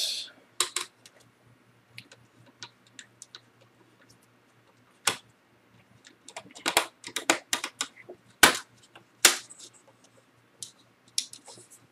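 Plastic LCD bezel of a Dell Vostro 1100 laptop being pried off the screen by hand. A run of irregular sharp clicks and snaps as its clips let go, thickest and loudest from about six to nine and a half seconds in.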